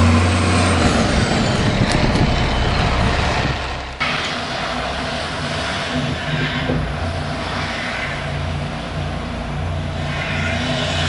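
Heavy oil-delivery tanker truck's diesel engine running loud and low on a snowy street, fading down until a sudden cut about four seconds in. After it, a car stuck in deep snow runs its engine, rising and falling.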